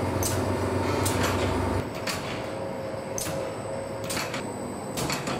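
Boilie-making machinery running: a dough mixer's deep hum for the first two seconds, then a steady whine with sharp clacks about once a second from the dough conveyor machine.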